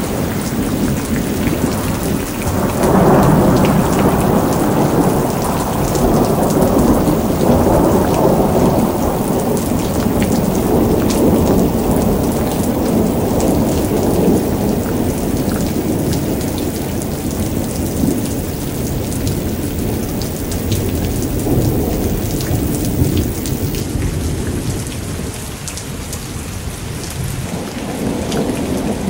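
Thunderstorm: steady rain pattering down under long rolling thunder. The thunder swells about three seconds in, rumbles on for more than ten seconds and dies away, and another roll begins near the end.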